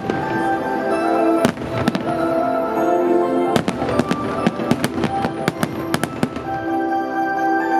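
New Year fireworks bursting close by in a rapid series of sharp bangs, over festive music; the bangs stop about six seconds in while the music carries on.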